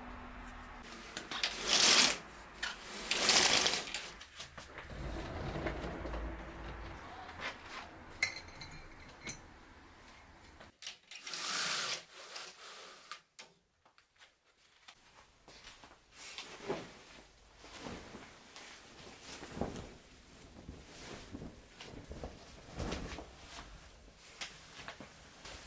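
Household handling sounds while tidying a room: two loud swishes early on and another about halfway through, then scattered small knocks and the rustling of bed linen being handled near the end.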